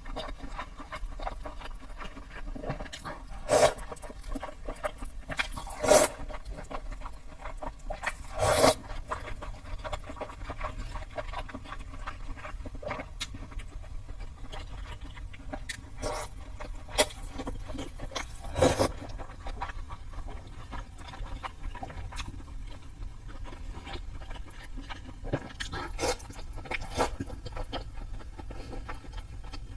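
Close-up eating sounds: wet chewing of sesame-paste-dressed wheat gluten, broken by scattered sharp clicks and scrapes of utensils against a bowl or container, over a steady low hum.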